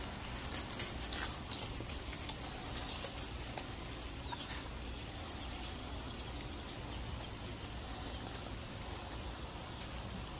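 Boerboel puppy chewing and nosing at the gravel ground: scattered crisp clicks and crunches, thickest in the first few seconds and sparser afterwards, over a steady low background rumble.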